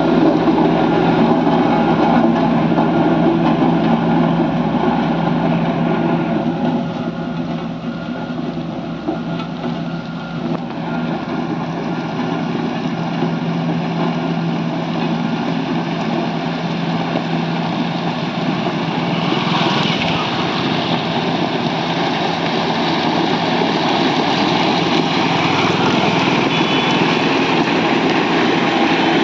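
Engines of heavy road-building machinery running steadily on a construction site where wet mix macadam is being laid. The sound dips for a few seconds about a quarter of the way in, then grows again just past the middle.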